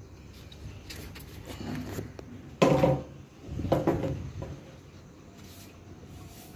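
Pickaxe props with pipe handles being handled and shifted on plywood, with two louder clattering knocks about two and a half and four seconds in.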